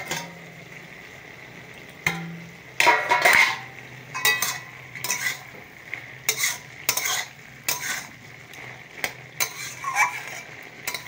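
A metal spatula scraping and stirring beetroot, carrot and potato curry in an aluminium kadai, in irregular strokes about every half second to second, over the sizzle of the vegetables frying. A metallic clack at the start as the aluminium lid is lifted off.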